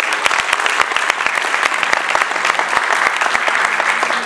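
An audience applauding: dense, steady clapping from many people.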